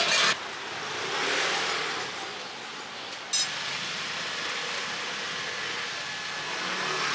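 Steady hiss of food-stall background noise, with a brief loud rush at the very start and one sharp click about three and a half seconds in.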